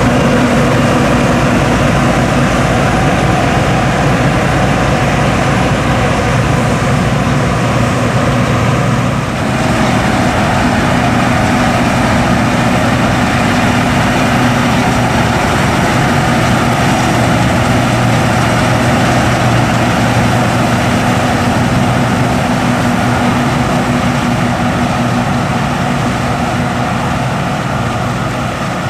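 John Deere S550 combine harvester at work: its 6.8-litre diesel engine and threshing machinery running loud and steady, with a brief dip and a shift in tone about nine seconds in.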